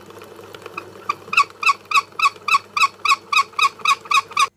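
Braided fishing line being wound tight onto a spinning-reel spool: a rhythmic squeak, about four a second, from the braid's supply spool turning under hand tension, over a steady low hum. The squeaking starts about a second in, grows louder, and cuts off suddenly near the end.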